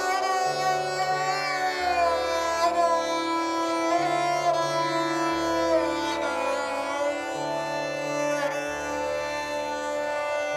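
Instrumental background music: a held melody with sliding, bending pitches over low sustained notes that change about every two and a half seconds.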